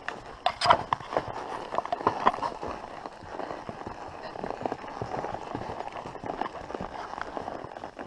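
Hooves of a horse walking on a dirt trail covered in leaf litter: a steady, uneven run of soft thuds and rustles, with one sharper crackle under a second in.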